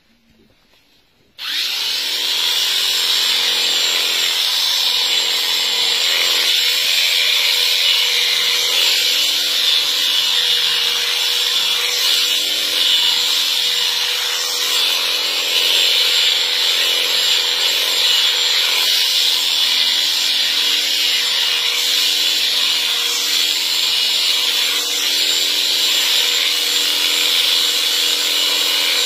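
Electric sheep shears running steadily with a high whine as they cut through the fleece. The sound starts abruptly about a second and a half in.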